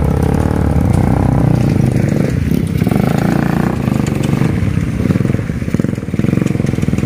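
Trail motorcycle engine running under throttle close by, with a dense low exhaust note; the revs ease off briefly a couple of times and pick up again.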